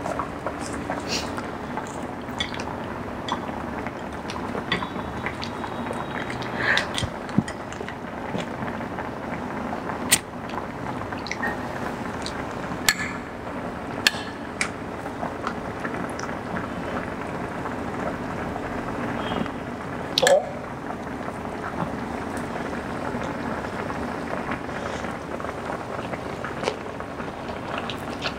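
Vinegar hotpot broth simmering steadily in the pot, with scattered crinkles and clicks as fresh herbs and rice paper are handled to roll a spring roll; one sharper click about twenty seconds in.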